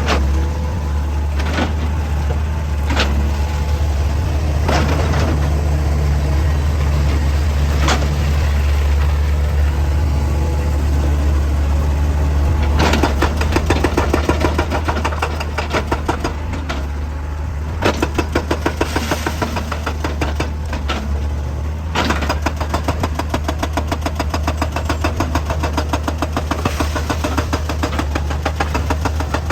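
Heavy excavator engine running steadily with a deep hum, with a few single knocks early, then bouts of rapid rhythmic knocking from a little before halfway on.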